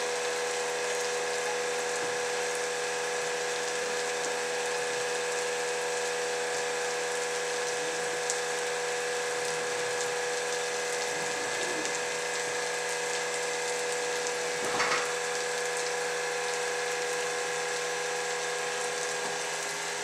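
Steady hiss and hum of a plank steam box running, with steam venting from its open end and several steady whining tones held through it. A brief knock comes about three-quarters of the way through.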